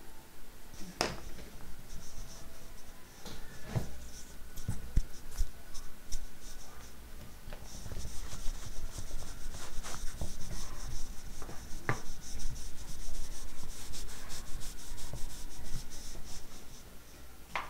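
Whiteboard eraser wiping marker drawing off a whiteboard: a few knocks at first, then a steady scratchy rubbing through most of the second half.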